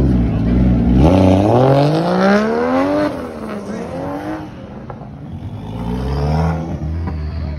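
Car engine revving hard as a car accelerates away. The pitch climbs steadily for about two seconds and drops sharply about three seconds in, at a shift or lift-off. It climbs again briefly, and then a lower engine sound swells near the end.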